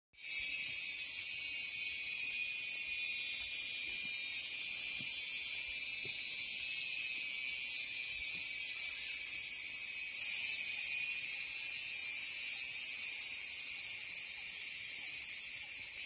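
Cicada calling: a loud, unbroken, shrill high-pitched buzz that holds steady and eases off slowly over the last few seconds.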